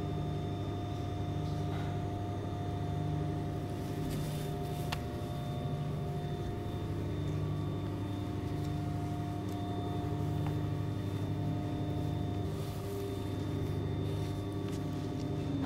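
Steady hum and whine of a powered large 3D sign printer, its fans and energized motors running, with a low hum that swells about every two seconds. A faint click about five seconds in.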